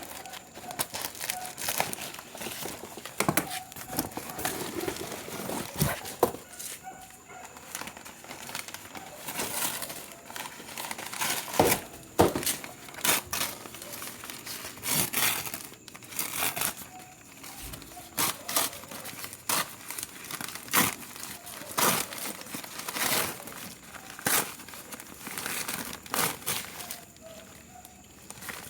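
Packaging being handled, crumpled and torn open in irregular bursts of crinkling and ripping as parcels of live plants are unwrapped.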